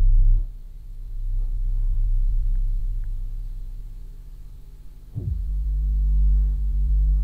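Dark ambient background drone: a deep rumbling hum that swells and fades, with a brief falling swoosh about five seconds in.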